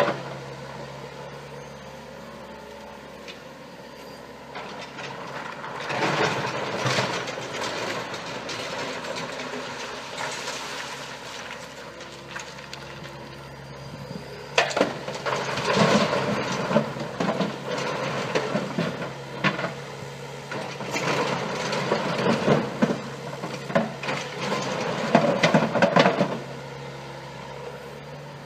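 Mini excavator engine running with a steady low hum, broken three times by stretches of rattling and clattering as the machine works.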